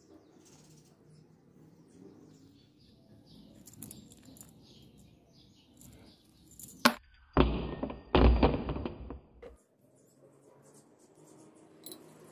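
Gloved hands handling a rebar-and-steel-pipe corn sheller frame: faint clicks and scrapes, a sharp click about seven seconds in, then two loud rough rubbing noises over about two seconds.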